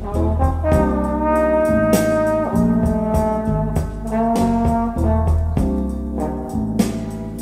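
Recorded jazz with a trombone playing a melody of held notes over drums and bass, with regular sharp cymbal strokes keeping time. Playback of a vinyl record transferred to reel-to-reel tape.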